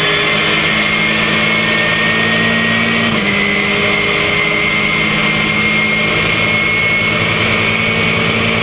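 Ginetta GT5 race car's engine running hard at high revs, heard from inside the cockpit with steady wind and tyre noise. Its note shifts about three seconds in, then climbs slowly as the car pulls down the straight.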